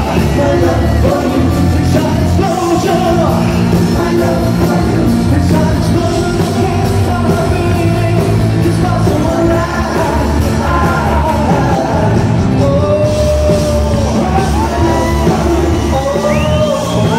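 Live pop band playing with male lead vocals, heard from the audience in a large concert hall; loud and continuous, with some yelling over the music.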